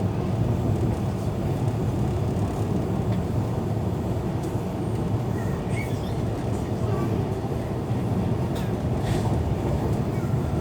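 Passenger train running, heard from inside a carriage: a steady low rumble with a few faint clicks.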